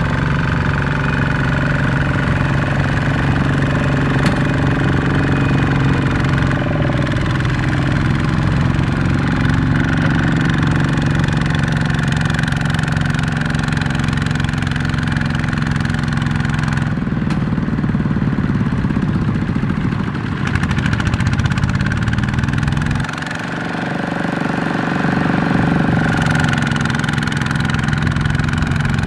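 Two-wheel walking tractor's single-cylinder diesel engine running steadily under load while it pulls a loaded trailer through mud. Its pitch sags and climbs again between about 17 and 23 seconds in, with a short dip in level near the end of that stretch.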